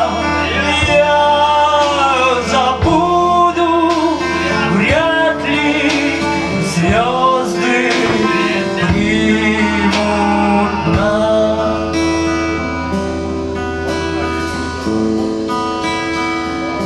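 Acoustic guitar playing with a male voice singing long, gliding notes, over a slow beat on a drum kit. About eleven seconds in the voice drops out and the guitar and drums carry on.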